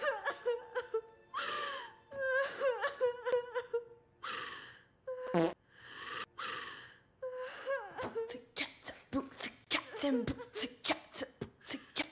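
An animated girl's voice whimpering and sobbing, with long gasping breaths, then a fast run of short, choppy vocal snippets from about eight seconds in.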